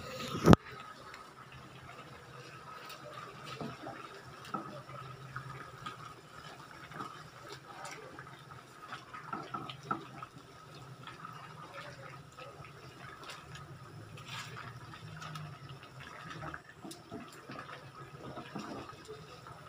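Chicken pieces and potatoes simmering in sauce in a metal pan while a metal spoon stirs them, with small scrapes and clicks of the spoon against the pan. One sharp knock about half a second in.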